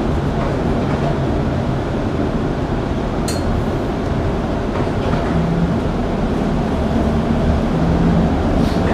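1948 St. Louis-built PCC streetcar heard from inside while moving: the steady running rumble of the car on its rails. A short sharp click sounds a little over three seconds in, and a fainter one near the end.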